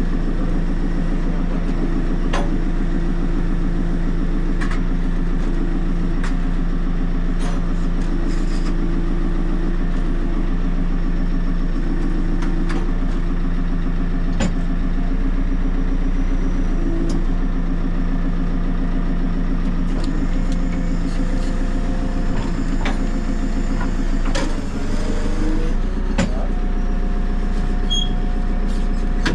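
Diesel engine of a JCB 3CX backhoe loader running steadily, with scattered sharp knocks. A higher steady tone joins near the end.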